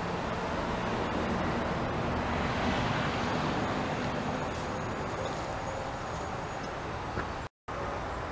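Steady outdoor background noise of distant road traffic, swelling a little about three seconds in. The sound cuts out completely for a moment near the end.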